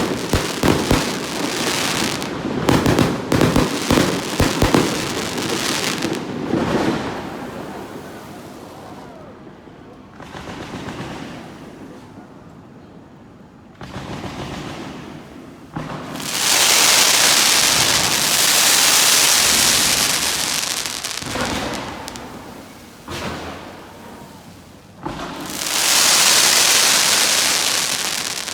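Fireworks going off: a rapid string of bangs and crackles for the first several seconds that dies away. Then come two long spells of loud crackling hiss, starting about 16 s in and about 26 s in.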